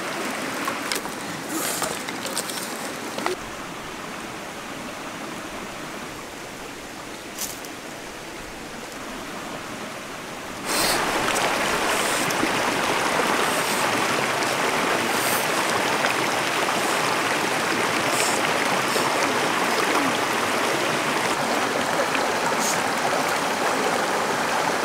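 Shallow river water running over stones, a steady rush that becomes much louder and closer about eleven seconds in. In the quieter first part a few sharp clicks and snaps stand out.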